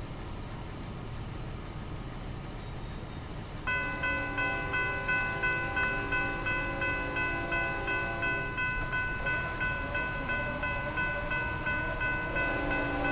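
Railroad grade-crossing warning bell starts ringing about three and a half seconds in, pulsing about twice a second, set off by the approaching train. Underneath it, the lead locomotive's horn sounds in the distance in two long blasts, the second starting near the end.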